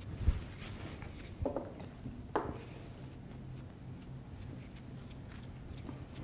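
Quiet handling noises from painting at a workbench: a single low thump about a quarter second in, then two short knocks or scuffs around one and a half and two and a half seconds, over a faint steady room hum.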